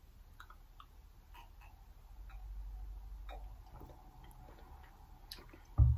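Faint, irregular small clicks and soft low handling noise as a person drinks a strawberry smoothie from a bottle, with a low rumble in the middle.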